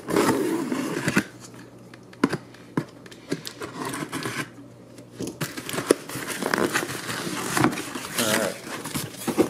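Cardboard shipping box being handled and opened: scraping and rustling of cardboard with scattered sharp knocks.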